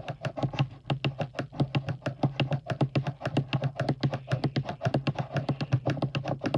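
Rapid clicking of small buttons, about eight clicks a second, over a steady low hum.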